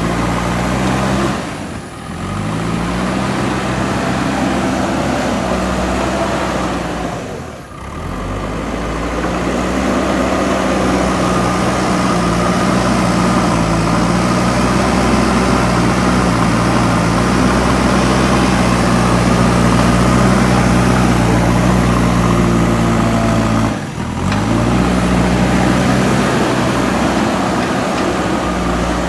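JCB 3DX backhoe loader's diesel engine running steadily at working revs, its pitch shifting a little now and then. The level drops briefly three times, about 2, 8 and 24 seconds in.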